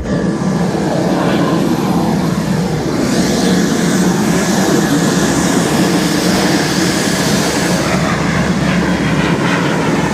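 Private jet's engines running, a loud steady roar that cuts in suddenly.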